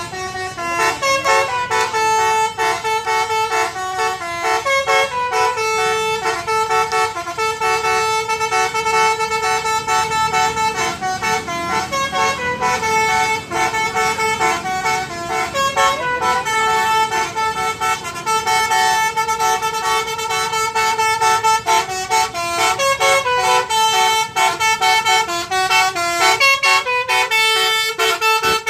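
Tour bus's basuri telolet horn playing a long tune, some notes held for seconds and others changing quickly, without a break.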